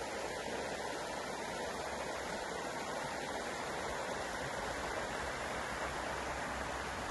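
Shallow river running over rocks and a line of stones: a steady rush of flowing water.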